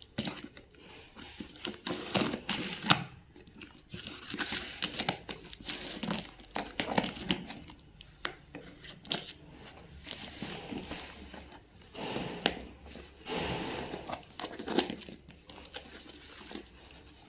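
A parcel's packaging being handled and torn open by hand: irregular crinkling and tearing with scattered sharp crackles.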